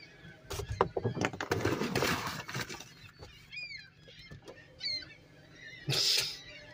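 Seagulls giving a few short calls around the middle, after a run of knocks and rustling in the first half, with a short burst of noise near the end.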